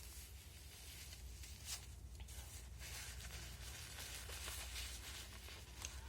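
Faint breathing and sniffling from a person with a cold, with soft rustling and a longer breath in the middle.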